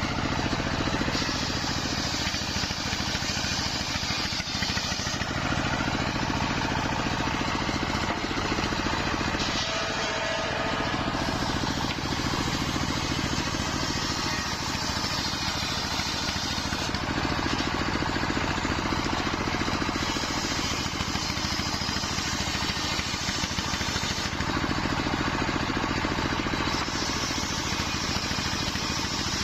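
Wide-bladed circular saw at a sawmill cutting nyampoh wood: a steady motor drone, with a higher, crisp cutting noise coming and going every few seconds as the blade bites through the timber.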